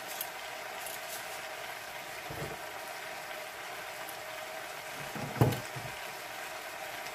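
Pot of chicken stew bubbling on the stove, a steady hiss of boiling, with two dull knocks of kitchen handling, a soft one about two and a half seconds in and a louder one about five and a half seconds in.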